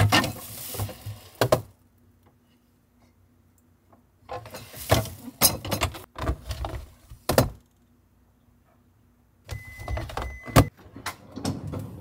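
Items and plastic containers being handled in a refrigerator: three bursts of clicks, knocks and rustling with quiet gaps between them, and a short steady high beep about ten seconds in.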